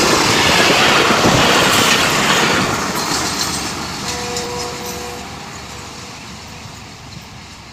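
Pakistan Railways passenger coaches rushing past close by, their wheels running loudly on the rails. The noise fades steadily as the last coach pulls away, with a brief faint tone near the middle.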